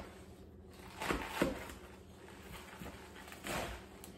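Kitchen knife cutting through green leaf lettuce onto a wooden cutting board: two short cuts about a second in, then a softer rustle of the leaves being gathered together.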